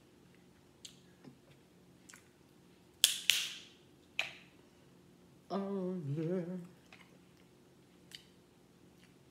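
Boiled crab leg shells being cracked and snapped apart by hand: scattered small ticks and a loud double crack about three seconds in, another crack a second later. About halfway through, a short hummed tune with a wavering pitch.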